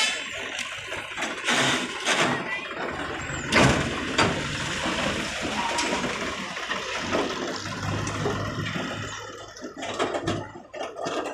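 Sonalika 750 tractor's diesel engine running as it pulls its emptied tipping trailer away over loose soil, under a steady rushing noise. Two sharp knocks come near four seconds in.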